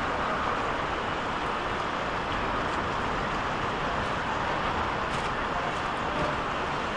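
Steady background noise of an outdoor street market: an even hiss with a low rumble and no clear voices.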